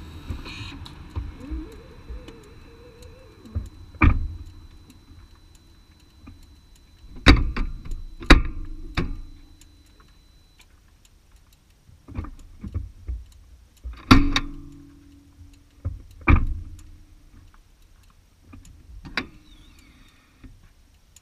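Underside of a BMW hybrid creeping at low speed on electric power alone, engine off: a low rumble broken by irregular sharp knocks and clunks every second or two, with a faint high steady whine in the first half. The clunks come from the drivetrain as the right engine mount moves a lot.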